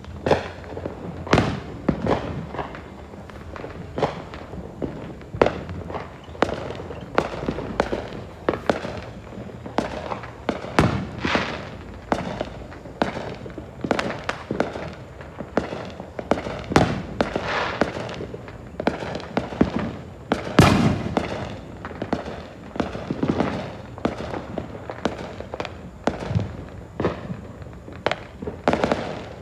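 Many fireworks going off at once across a neighbourhood: a continuous run of booming shells and sharp firecracker bangs, overlapping and irregular, several a second at times, with crackle between them and a particularly loud bang about twenty seconds in.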